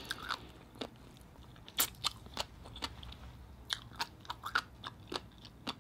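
A person chewing a mouthful of food close to the microphone: scattered wet mouth clicks and small crunches at irregular intervals.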